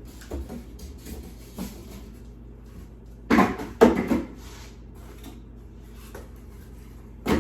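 Parts and packing being handled and lifted out of a box, with a few light clicks and then a burst of loud knocks and rustling a little past the middle, and one more knock at the end.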